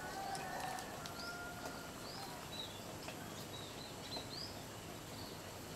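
Small birds chirping: a run of short, high, rising-and-falling notes repeated over several seconds against a faint outdoor background hiss. There are a few faint clicks as well.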